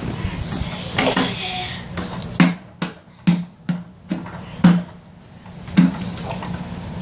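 A baby slapping a wooden tabletop with open hands: about six sharp, irregularly spaced smacks through the middle of the stretch.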